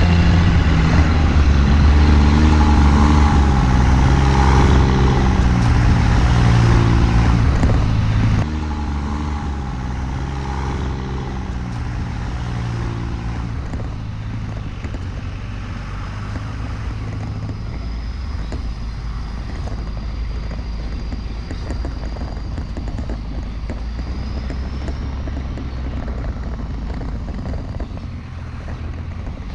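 Dodge pickup's 24-valve Cummins inline-six turbodiesel pulling a dump trailer up a steep gravel driveway, its note stepping up and down under load. About eight seconds in it drops noticeably quieter and runs on steady.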